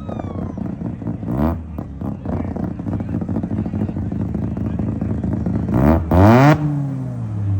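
Car engine idling, revved briefly about a second and a half in and revved harder near the end, the pitch climbing and dropping back to idle each time; the second rev is the loudest.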